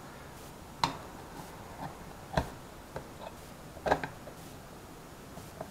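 Several light clicks and taps of a chrome speedometer housing and gauge face being handled and test-fitted together, scattered irregularly over a few seconds.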